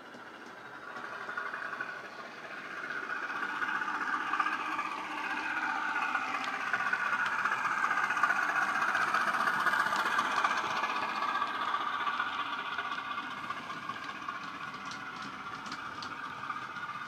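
Sound decoder in a Heljan OO gauge model of the North British 10800 diesel locomotive, playing its diesel engine sound through a small upgraded speaker as the model runs. It grows louder as the model approaches and eases off as it passes, with a few light clicks near the end.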